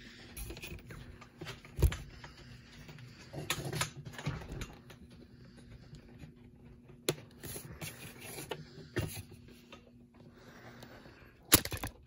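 Scattered knocks, clicks and rustling of things being handled and a handheld phone being jostled, with a loud knock about two seconds in and two more just before the end, over a faint steady hum.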